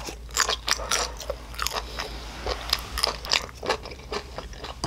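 A person chewing a mouthful of grilled pork makchang (large intestine), heard as many irregular short clicks.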